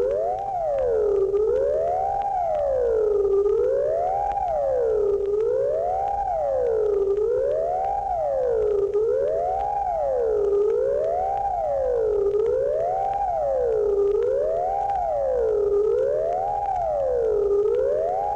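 Electronic space sound effect played from an old record: a siren-like tone that glides up and down about every two seconds, with faint record crackle and hum beneath it.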